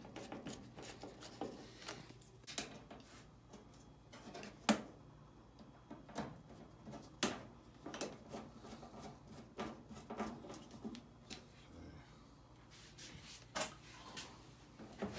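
Scattered clicks and light knocks from hand work on a washing machine's metal top frame: a hand screwdriver driving a screw, and plastic and sheet-metal parts being handled, with a few sharper knocks standing out.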